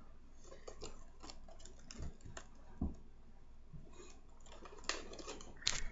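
Clear plastic packaging being handled and crinkled, making scattered clicks and crackles, with a couple of sharper crackles near the end.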